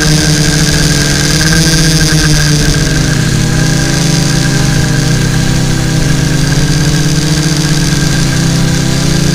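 Quadcopter's four brushless motors (RCX H2214 950KV) spinning 10x4.5-inch propellers, heard from the onboard camera as a loud, steady buzz with several tones. From about three seconds in, the tones dip and waver in pitch as the motor speed changes.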